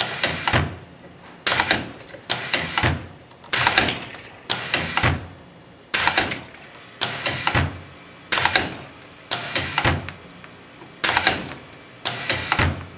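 Hustler hook winding machine cycling about a dozen times, roughly once a second. Each stroke is a sudden sharp sound that trails off, as the hook pulls another turn of 15-gauge copper wire through a toroid core.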